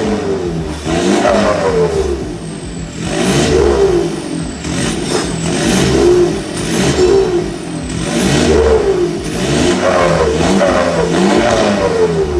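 Toyota 2KD-FTV 2.5-litre four-cylinder turbodiesel being revved up and let fall again over and over through a full straight-pipe exhaust (downpipe, front pipe, centre pipe and tailpipe).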